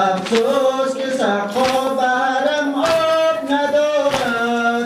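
A noha, a Shia mourning lament, sung by a male voice in long held notes, with regular sharp chest-beating strikes (sineh-zani) about every second and a quarter.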